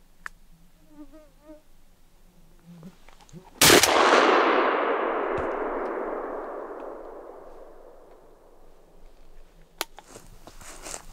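A single shotgun shot about three and a half seconds in, loud and sharp, its report echoing and dying away over about four seconds.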